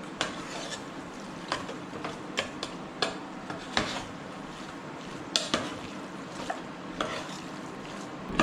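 A spoon stirring chicken biriyani masala in a pressure cooker pot: irregular scrapes and clinks of the spoon against the metal over a steady sizzle of the frying masala.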